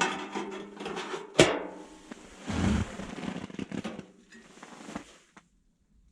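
Clattering and rustling from hands working at a wood-burning tent stove and its firewood, with one sharp knock about a second and a half in and a duller thump a second later; it stops after about five seconds.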